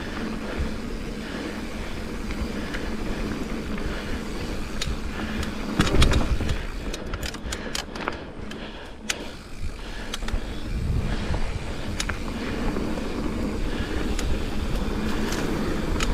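Mountain bike riding over a dirt trail: steady rumble of tyres and wind on the microphone, with a hard thump about six seconds in and a short run of sharp clicks just after it.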